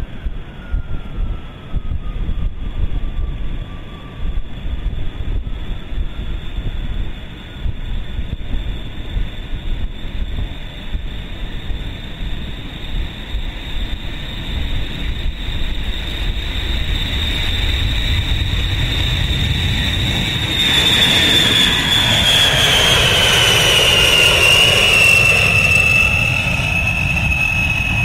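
B-52H Stratofortress's eight TF33 turbofan jet engines at takeoff power: a roar with a high whine that grows louder as the bomber rolls and lifts off. It is loudest as the bomber passes close overhead, about 21 seconds in, and the whine drops in pitch as it goes by.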